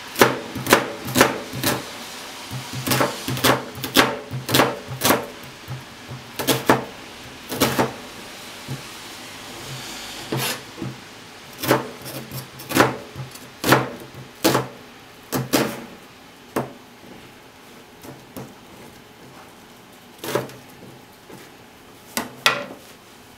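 Santoku knife cutting onion on a plastic cutting board: a series of sharp knocks as the blade goes through and strikes the board, in uneven runs with short pauses between.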